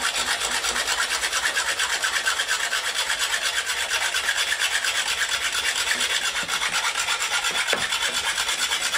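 Fine-toothed hacksaw cutting through a dry bamboo cane, rasping in rapid, even back-and-forth strokes. This is one fast, continuous cut, the way to get a clean, straight cut through bamboo.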